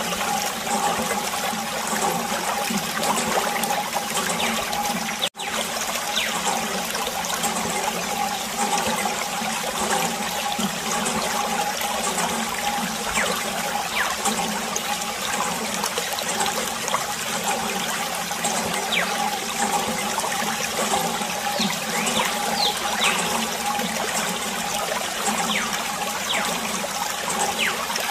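Water from a hose running and trickling steadily over a wet floor, with a momentary break about five seconds in.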